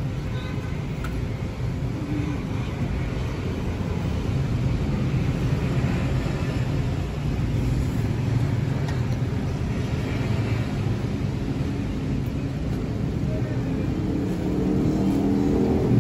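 Steady low rumble of road traffic, swelling near the end as a pitched engine sound comes up.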